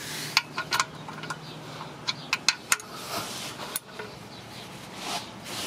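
Socket ratchet clicking in short, irregular runs of sharp clicks as the oil drain plug is snugged down into the oil pan.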